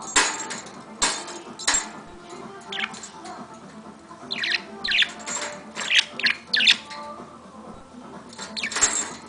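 Pet bird giving a string of short, sharp, high-pitched chirps and squawks at irregular intervals, some sliding down in pitch.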